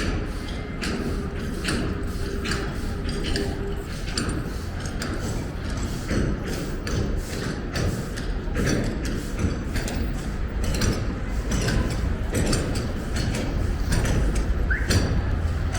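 Street ambience: a steady low rumble with regular sharp ticks about twice a second, the footsteps of someone walking on pavement.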